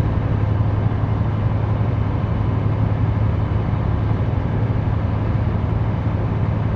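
Semi truck heard from inside the cab while driving: a steady diesel engine drone with a strong low hum, under an even wash of road and tyre noise.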